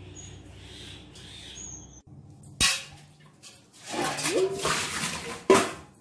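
A bunch of freshly washed coriander shaken hard to fling off water: rustling and spattering, with a sharp smack a little over halfway and a louder one near the end. A low steady hum fills the first two seconds.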